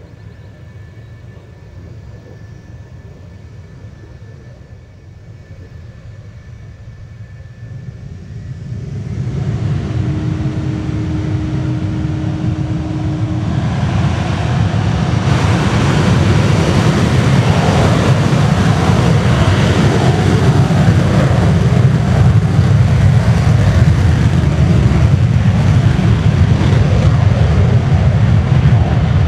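The two J79 turbojets of an RF-4E Phantom II run at first with a steady whine. They spool up about a third of the way in, then step up again to a loud, full-range jet roar as the jet advances to takeoff power and begins its takeoff roll.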